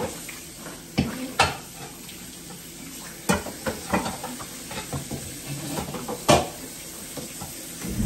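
Dishes being washed by hand under a running kitchen tap: a steady hiss of water with pots, a lid and utensils clattering against the steel sink and dish rack, several sharp knocks, the loudest about six seconds in.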